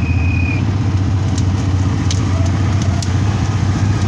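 ATV (quad bike) engine running steadily at low revs, with a few light clicks.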